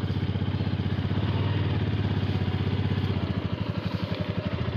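Single-cylinder 250 cc motorcycle engine idling with an even, rapid low pulse.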